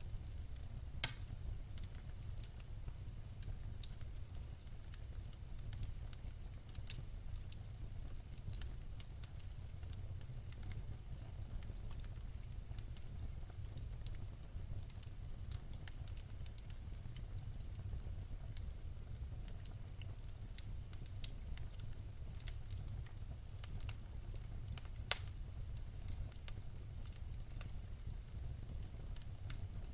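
Wood fire burning in a fireplace: a steady low rumble of the flames with scattered crackles and pops from the logs, a sharper pop about a second in and another near the end.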